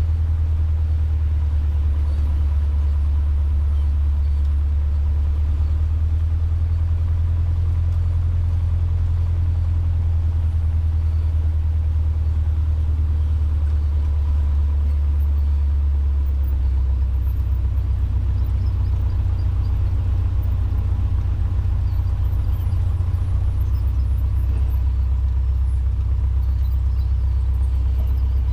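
Cessna 150's four-cylinder Continental O-200 engine running steadily at low taxi power, a deep continuous drone that shifts slightly in pitch a little past halfway.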